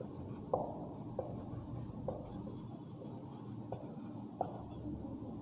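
Marker pen writing on a whiteboard: faint strokes with about six short taps as the tip meets the board.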